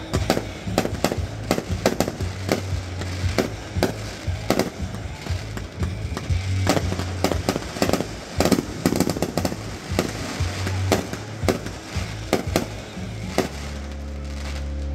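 Aerial fireworks going off in a rapid grand-finale run of sharp bangs and crackles, several a second, that stops suddenly about a second and a half before the end. Steady low tones follow.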